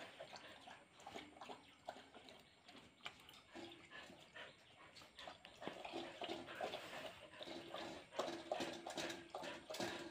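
Faint sounds of a Siberian husky and a border collie squabbling: short dog vocal sounds that come more often and louder in the second half, among scattered short clicks and scuffs.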